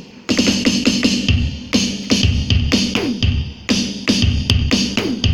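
Muza DD 315 electronic drum kit played as a steady beat through its sound module: kick drum, cymbal and pitched drum hits whose pitch drops after each stroke, with the kick coming in about a second in.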